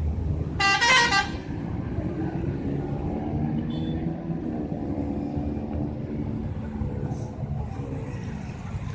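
A bus's telolet horn plays a short burst of quick, stepping musical tones about a second in. Then the bus engine runs on, its pitch rising and falling.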